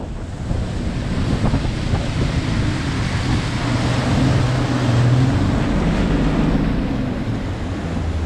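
Bass boat running at speed, its Mercury OptiMax outboard motor holding a steady drone under the rush of water along the hull and heavy wind buffeting on the microphone.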